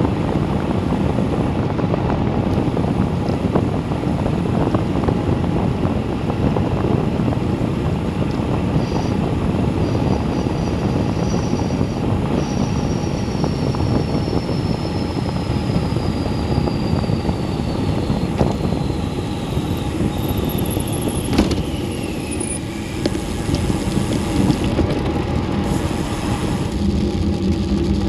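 Steady rush of wind over the microphone, with tyre noise, from a road bicycle descending at about 35 mph. A faint high whine slowly falls in pitch through the middle, and there is a single sharp click about three-quarters of the way through.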